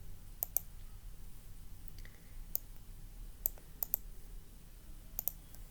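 Sharp, separate clicks at a computer, about eight of them, several in quick pairs like double-clicks, over a low steady hum.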